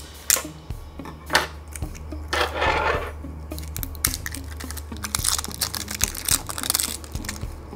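A few sharp clicks from scissors working on a small plastic bottle. From about halfway in, a dense crinkling as the bottle's thin plastic is handled.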